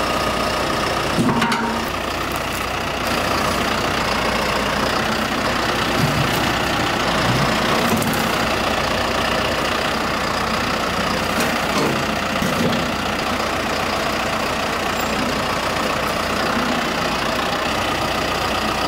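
A John Deere tractor's engine running steadily under load as its front loader and forks push and lift a fallen tree trunk, with a brief knock about a second in.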